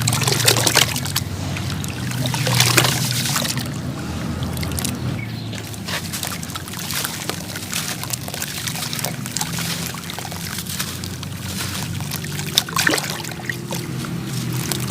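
Wet sand-cement crumbling in water: trickling and sloshing with a steady run of small crackles and crunches.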